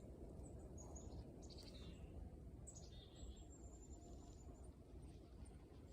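Faint birdsong: a few short high chirps and one thin, high whistled note held for over a second, over a low steady rumble.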